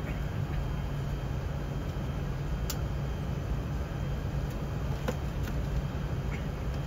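Steady cabin rumble inside an Airbus A380 moving along the runway: engine and airflow noise with a constant low hum, and a few faint ticks of cabin fittings.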